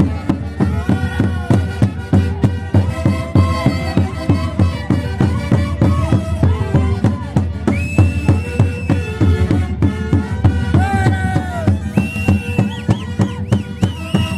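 Andean Santiago festival music played by a band: wind instruments carry a wavering, bending melody over a steady, fast drum beat.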